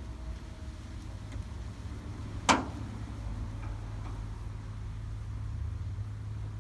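A steady low hum with one sharp knock about two and a half seconds in, the loudest sound, ringing briefly.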